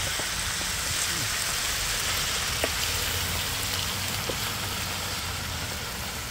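Cabbage and vegetables sizzling steadily in hot oil in a pan over a wood fire, with a few light clicks as a wooden spatula stirs them.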